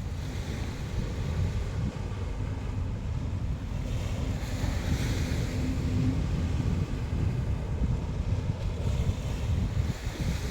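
Sea waves breaking and washing up the shore, with strong wind buffeting the microphone as a heavy low rumble. The hiss of surf swells about halfway through and again near the end.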